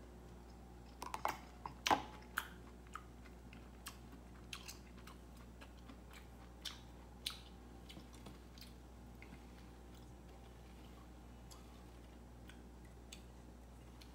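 Irregular sharp clicks and crunches, a loud cluster about one to two and a half seconds in, then scattered single ones that thin out after about eight seconds.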